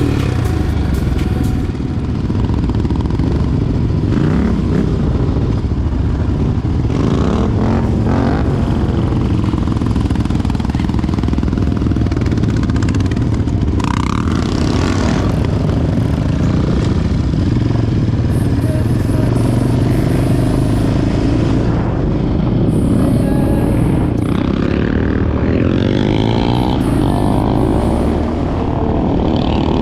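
Quad (ATV) engine running steadily while riding, with the revs rising and falling near the end.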